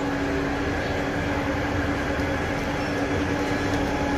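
Parked shuttle bus running at the curb: a steady hum and whir with a constant low tone.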